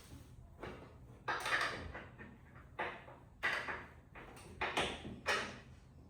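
Hand tools working on metal while an engine mount is bolted in: a series of about six short, separate rasping clanks at uneven intervals.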